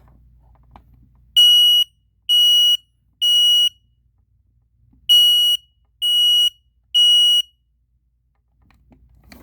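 Kidde 0916K smoke alarm sounding its test alarm in the temporal-three pattern: two rounds of three loud, piercing, high-pitched beeps, starting a little over a second in, with a short pause between rounds.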